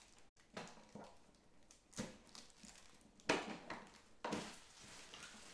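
Faint handling noise from an infant car seat being moved about: a few soft, separate knocks and rustles.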